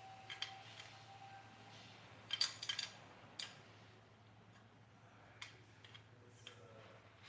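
Light metal clicks and taps from a straight edge and hand tools being handled on an engine's valvetrain, with the loudest quick cluster of clicks about two and a half seconds in, over a faint steady hum.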